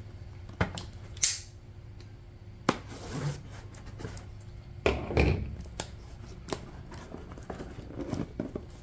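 A small cardboard box being handled and turned over: scattered light knocks, scrapes and rustles of cardboard, a few every couple of seconds.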